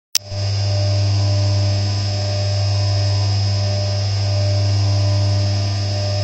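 CNC vertical mill roughing a billet aluminium engine case under flood coolant: a steady deep hum with a thin high whine above it, unchanging throughout.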